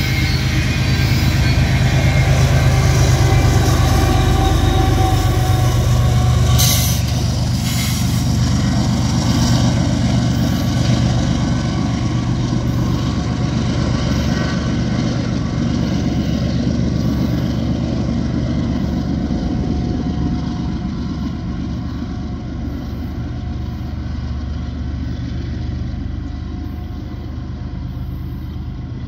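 BNSF freight train of open-top hopper cars passing, steel wheels rumbling on the rails under the steady low drone of a diesel locomotive, slowly fading as the train moves away. A brief sharp high noise about seven seconds in.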